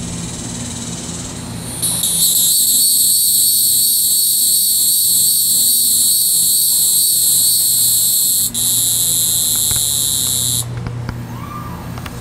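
Hieroglyphic cicada (Neotibicen hieroglyphicus) singing: a loud, high buzz that starts about two seconds in, drops out for an instant, and stops a little before the end.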